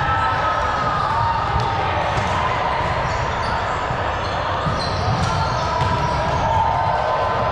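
Team ball game in play: scattered ball thuds and impacts over a steady din of players' voices.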